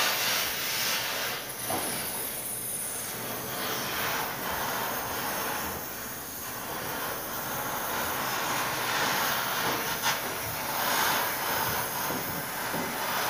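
Gas welding torch flame hissing steadily while welding a steel heating pipe joint, with a couple of sharp clicks.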